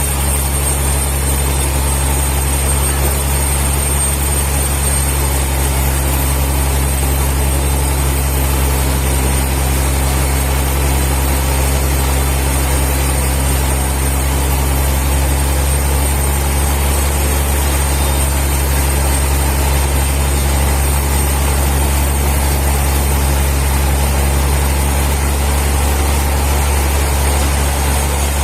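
Sawmill machinery running: a loud, steady low-pitched motor drone with a constant hum and a thin high whine, holding even throughout with no cuts or knocks.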